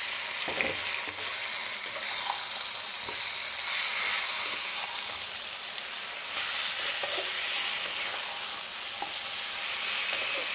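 Spiced chicken pieces sizzling in hot mustard oil with fried onions in a metal wok, stirred with a metal spatula. The sizzle is a steady hiss that swells louder about four seconds in and again around seven seconds.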